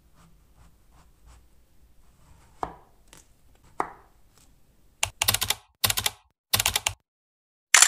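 A kitchen knife slicing peeled zucchini on a wooden cutting board: faint cuts, with two louder knocks about two and a half and nearly four seconds in. From about five seconds on come four loud bursts of rapid clicking, a keyboard-typing sound effect.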